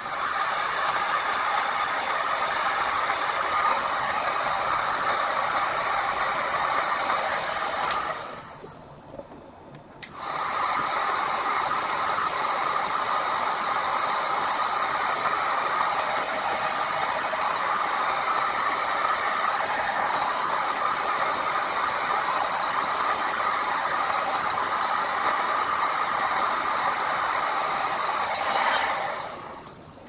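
Electric heat gun blowing hot air steadily onto the plastic wrapped round a glass jar, melting its edges down. It cuts out for about two seconds around eight seconds in, then runs again and stops shortly before the end.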